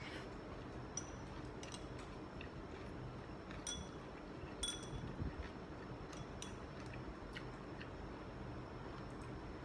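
Cutlery clinking against a dish now and then while eating, with small scattered taps and clicks; the two sharpest, ringing clinks come a little past a third of the way in and about a second later.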